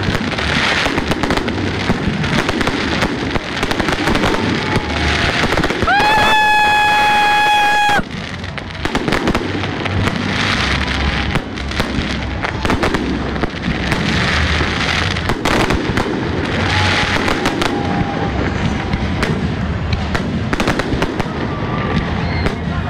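Fireworks display going off continuously: many bangs and crackling bursts close together. About six seconds in, a steady high tone sounds for about two seconds over the bursts.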